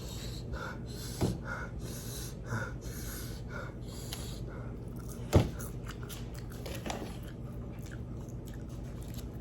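Close-miked chewing and wet mouth sounds of a person eating, with soft smacks about once a second at first and a few sharp clicks, the loudest about five seconds in.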